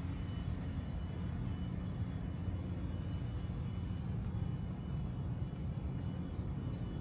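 Steady low rumble of outdoor urban background noise.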